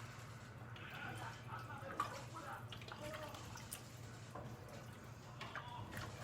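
Cauliflower stew heating in a pot, with faint bubbling and dripping of liquid over a low steady hum, and a small click about two seconds in.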